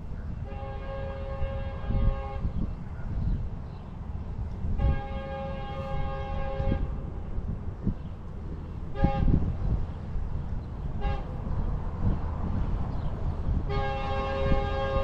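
Horn of an approaching Metrolink locomotive sounding a crossing warning: two long blasts, two short toots, then a third long blast starting near the end. Under it there is a steady low rumble.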